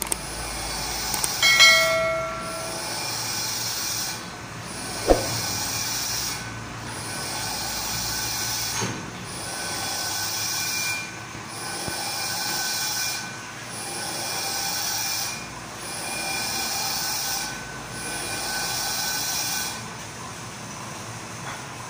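Metal lathe machining a screw conveyor shaft: a steady cutting hiss with a thin squeal that swells and dips about every two seconds. A ringing metal clink comes about two seconds in and a sharp clank about five seconds in, and the cutting noise stops shortly before the end.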